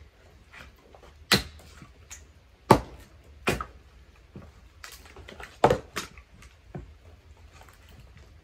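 Firewood being split by hand with an axe: four sharp strikes on the wood spread over about six seconds, with lighter wooden knocks between them.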